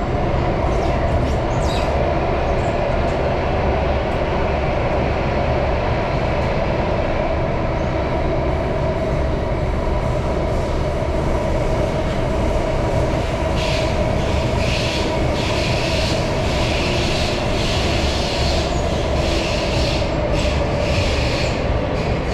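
Singapore MRT train running at speed, a steady rumble with a hum. From a little past halfway, a run of sharp rattles and clicks from the wheels on the track comes and goes.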